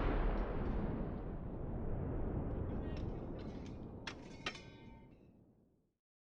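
The long rumbling tail of a loud boom from a test sound effect, fading slowly away. A few sharp clicks and short metallic pings sound about three and four and a half seconds in.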